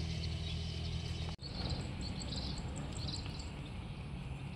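A steady low hum for about a second and a half, cut off abruptly, then rural outdoor ambience with several short high-pitched chirps from small animals.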